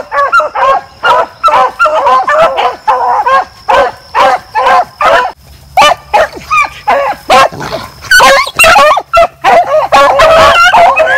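A pack of rabbit hounds baying on a rabbit's trail: a steady run of short, pitched bays several a second. In the last few seconds the voices overlap more thickly as the hounds come close.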